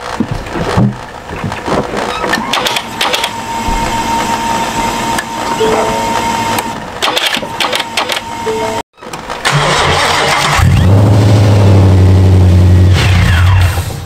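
2017 Ford Mustang (S550) on a weak, jump-charged battery: clicking and electronic warning tones at first, then about ten seconds in the starter cranks and the engine fires. It runs loud for about three seconds and dies near the end. The owner takes the stalling for too little voltage reaching the PCM.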